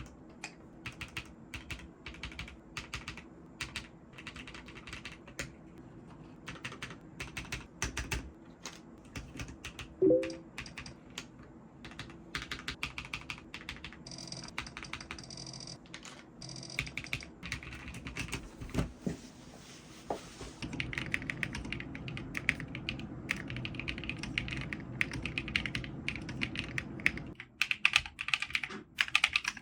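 Typing on a custom-built mechanical keyboard: a long run of key clacks, quick and dense in stretches, with one brief louder sound about ten seconds in.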